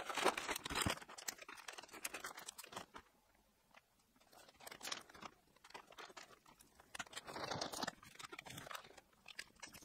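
Faint crinkling and rustling of a clear plastic vacuum storage bag being handled as a filament spool goes in and its zip seal is closed, with scattered small clicks and a short quiet pause partway through.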